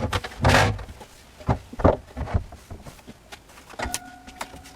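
A hammer tapping a shim in under an upright bookshelf post: a few short, sharp knocks, after a louder scraping rustle at the start. A brief faint ringing tone comes near the end.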